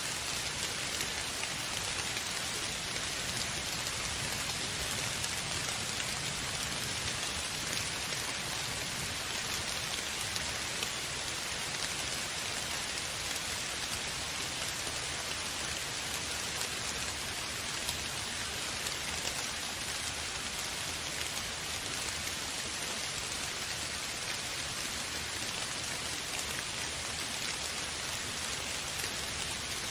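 Steady rain falling on a surface, an even hiss of many drops with no thunder or other events.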